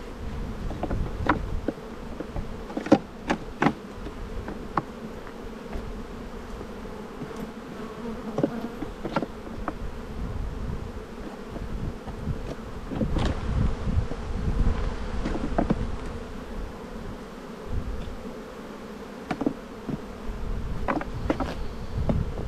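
Honeybees buzzing steadily around an open hive. Scattered sharp wooden knocks and clicks, the loudest about three seconds in, as frames are handled and set into the hive box.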